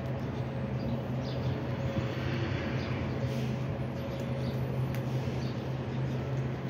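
A large vehicle's engine running steadily with a constant low hum, with faint bird chirps.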